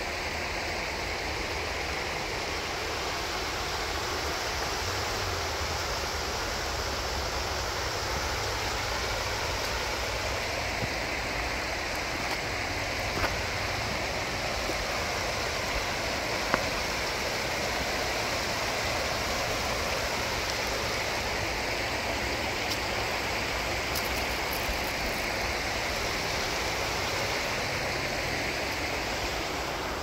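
Shallow stream running steadily over a stony bed: a continuous rush of water. Two faint clicks come through about 13 and 16 seconds in.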